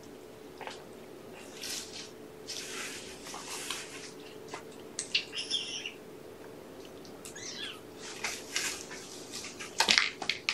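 Cats and kittens playing on and around a cardboard scratcher: scratchy rustling and light taps of paws and claws, with two short high chirping calls about halfway through and a louder knock near the end.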